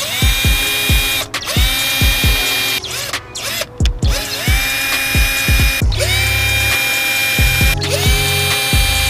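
Cordless drill boring pilot holes through a car side skirt in about six bursts of one to two seconds. Each burst spins up to a steady whine.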